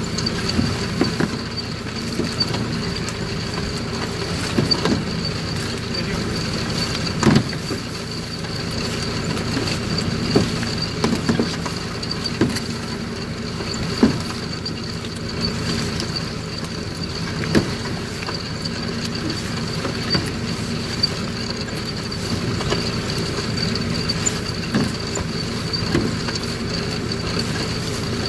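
A steady engine hum with occasional short knocks.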